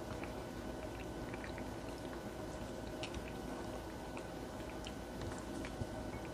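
Steady low background hum with a few faint, scattered light ticks and taps as a folded corn tortilla taco is pressed down with a silicone spatula on a ceramic plate.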